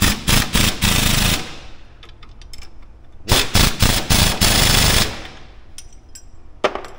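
Pneumatic impact wrench hammering on a nut at a vehicle's front wheel hub, in two bursts of a couple of seconds each, the second starting about three seconds in. A short metallic clank near the end.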